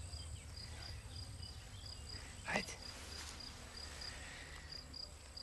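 Crickets chirping steadily, a faint high pulsing trill repeating a few times a second. About two and a half seconds in there is one short vocal sound.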